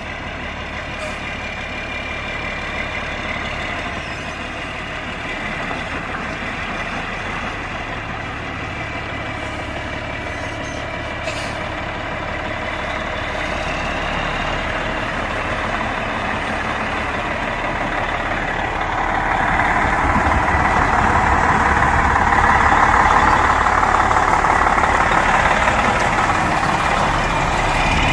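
International 9100 tri-axle grain truck's diesel engine running at low speed while the truck maneuvers, growing louder in the second half.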